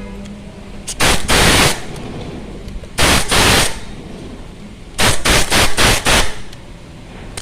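Three short, loud bursts of harsh noise from a workshop tool used on a motorcycle engine guard, the last one broken into several quick pulses.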